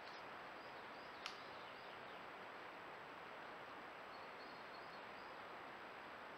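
Quiet meadow ambience: a steady hiss with a few faint, high chirps, and one short sharp click about a second in.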